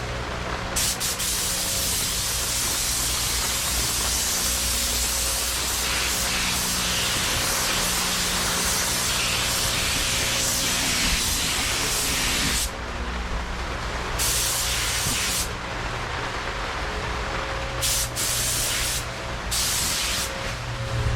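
Paint spray gun hissing as basecoat goes onto a van door: one long pass of about twelve seconds, then several shorter trigger pulls with brief gaps between.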